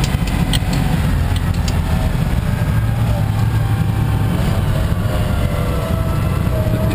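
Small open car's engine running steadily while driving, a low hum with road and wind noise heard inside the open-sided cabin.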